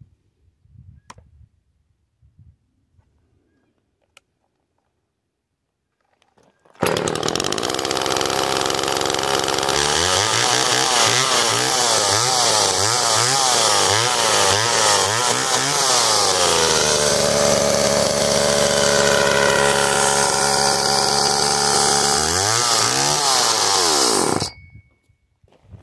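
Homelite Super 2 two-stroke chainsaw starting up and running after a few faint clicks. It idles, is revved in a string of quick throttle blips, holds a steady speed, revs once more, and then stops abruptly.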